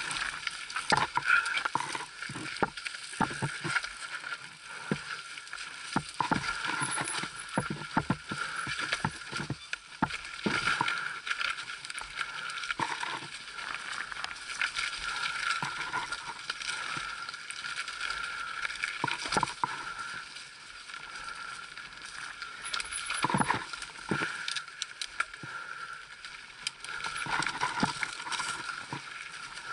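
Mountain bike rattling down a rough, rocky trail, picked up by a camera mounted on the bike. Chain and frame clatter with frequent irregular knocks from rocks over a steady hiss of tyres and air.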